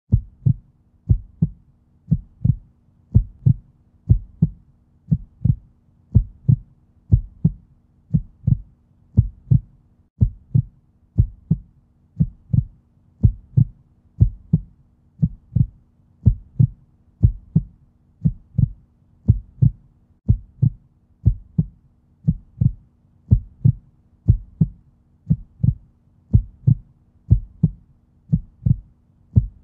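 Heartbeat sound effect: a steady, even run of low thumps, a little over one a second.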